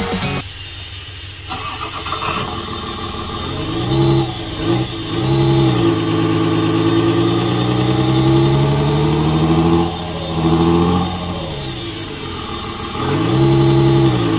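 Simulated engine sound from an ESP32 RC engine sound module, played through a small bar speaker. The engine starts about two seconds in, then idles and revs up and down several times as the transmitter's throttle stick is moved, with one long, slow rev in the middle.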